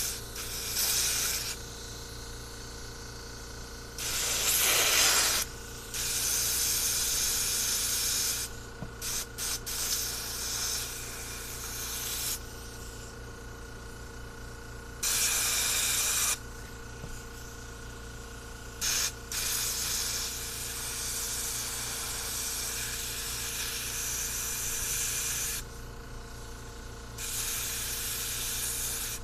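Hissing spray in about seven separate bursts, some brief and some lasting several seconds, the loudest about four seconds in, as a carburetor float bowl is sprayed clean of old gasket sealer.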